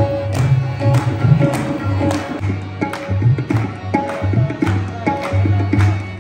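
Instrumental stretch of a Punjabi song: a steady drum beat of about two strokes a second over a bass line and held melody notes, with an audience clapping along.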